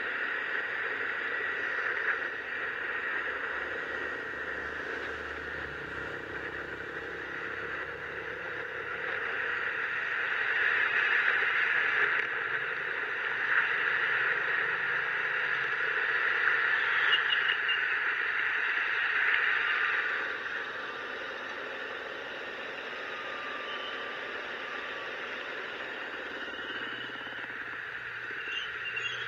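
Steady rushing hiss of a motor scooter riding on a rain-soaked road: tyres on wet asphalt and wind over the mounted camera. It grows louder for about ten seconds in the middle, then eases back.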